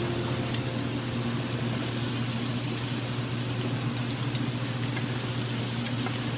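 Fideuà (noodles and seafood in seafood stock) simmering and sizzling in a wide paella pan: a steady, even hiss over a steady low hum.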